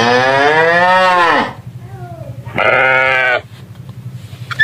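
Goat bleating twice: a long bleat whose pitch bends down at the end, then a shorter one about a second later.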